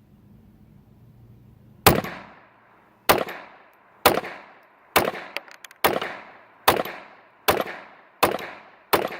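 Nine .22 LR rounds of Armscor Precision ammunition fired from a Ruger Mark II semi-automatic pistol, about one shot a second at a steady, slightly quickening pace, each crack followed by a short ringing echo. The steady rhythm shows the pistol cycling the ammo without a stoppage.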